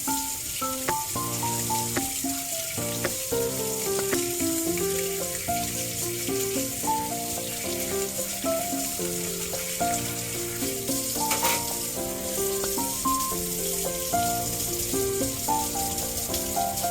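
Background music, a gentle instrumental melody of short held notes, over a steady high crackling hiss.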